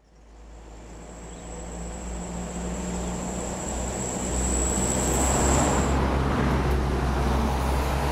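Diesel engines of heavy construction machinery running as a steady low rumble, fading in and growing louder over the first five seconds. A thin high-pitched whine runs alongside and stops about six seconds in.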